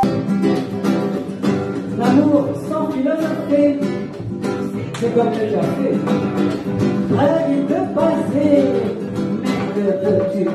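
Acoustic guitar playing live, plucked and strummed, accompanying a woman singing into a microphone.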